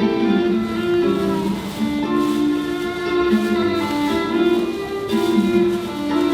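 Music: a melody of plucked, guitar-like notes over a steady accompaniment.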